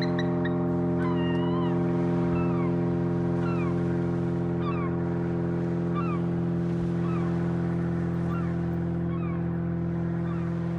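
Repeated short, falling bird cries from a squabble between a bald eagle and a gull, coming often at first and thinning out later. Under them runs a loud, steady low mechanical hum, like an engine or generator running.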